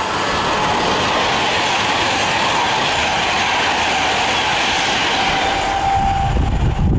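Class 390 Pendolino electric train running through the station at speed: a loud, steady rush of wheel and air noise as it passes close by, with a low rumble growing near the end.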